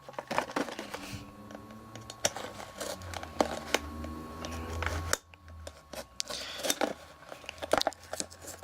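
Stiff plastic toy packaging being worked open by hand, crinkling and crackling with many irregular clicks and snaps; the packaging is hard to open.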